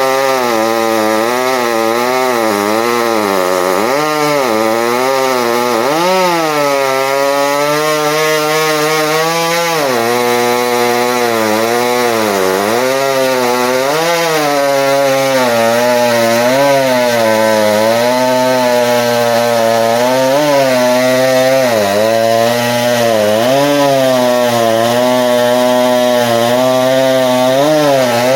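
Two-stroke chainsaw cutting through red elm at high revs, its engine pitch dipping and recovering every second or two as the chain loads up in the wood.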